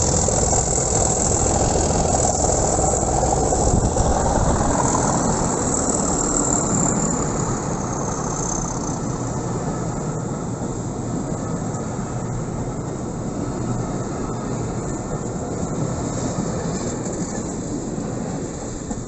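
Loco-hauled passenger coaches rolling past on the rails, a steady rumble with a few faint clicks that slowly fades as the train draws away.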